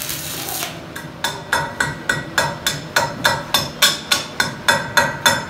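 Welder's chipping hammer striking a fresh weld bead on a steel truck axle tube to knock off slag: rapid, evenly spaced ringing metal taps, about three to four a second, starting about a second in. Before the taps, the tail of the arc-welding sizzle is heard.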